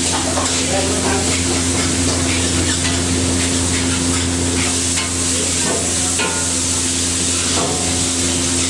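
Egg fried rice sizzling in a hot wok while a metal ladle scrapes and knocks against the wok, stirring and tossing the rice. A steady low hum runs underneath.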